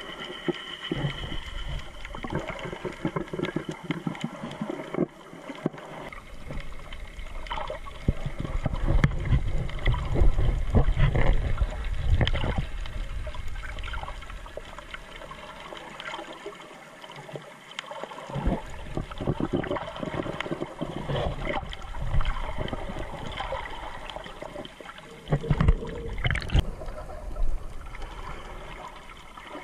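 Underwater sound picked up by a GoPro held under the surface: muffled swishing and gurgling of water moving around the camera, with a louder low churning rumble about eight to twelve seconds in.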